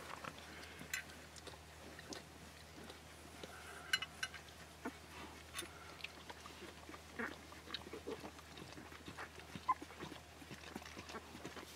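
Faint scattered clicks and smacks from a litter of 12-day-old Akita puppies nursing against their mother, with a few small short squeaks.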